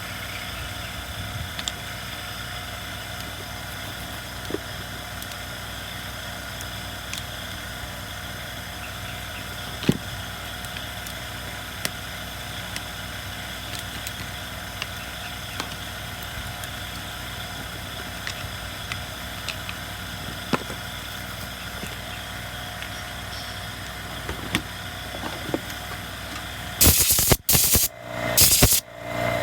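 Steady mechanical hum with scattered light clicks and knocks, and a few loud bursts of noise near the end.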